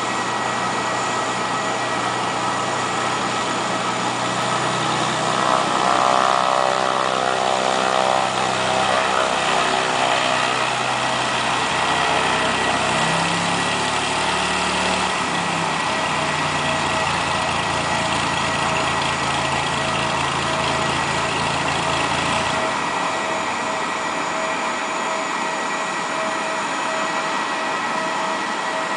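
Piston engine and propeller of a single-engine Cessna running on the ground as it taxis and then sits at idle. The engine note shifts in pitch several times in the first half and settles lower about 22 seconds in.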